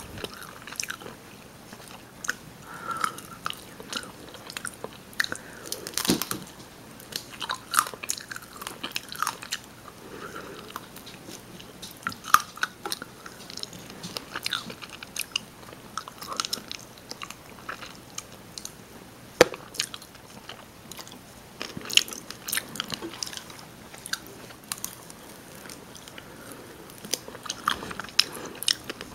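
Close-miked chewing and biting of rotisserie chicken: irregular wet mouth clicks and smacks, with a few sharper clicks standing out.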